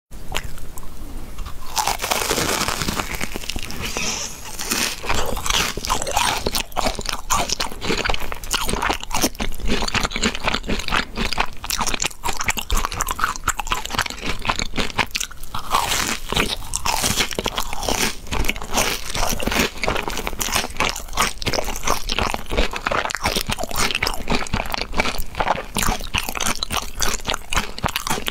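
Crunching and chewing of crispy deep-fried breaded balls: a dense run of crisp crackles as they are bitten and chewed.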